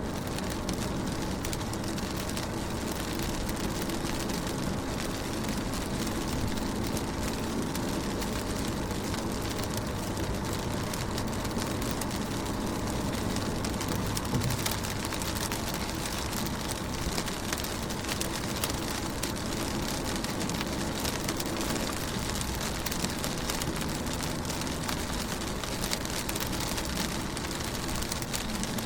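Rain pattering steadily on a car window, a dense even spatter of drops with no let-up.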